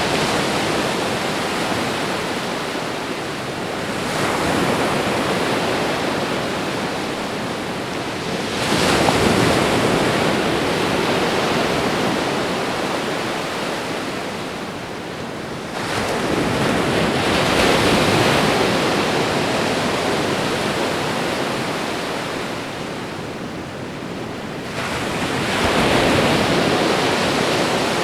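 Ocean waves breaking and washing up a shore: a steady rush of surf that swells four times, several seconds apart, each surge fading back before the next.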